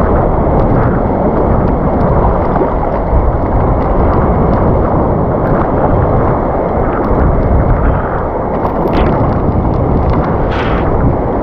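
Steady rush of surf water around a wading angler, mixed with wind rumble on the microphone. Near the end there is a brief splash as the hooked speckled trout thrashes at the surface.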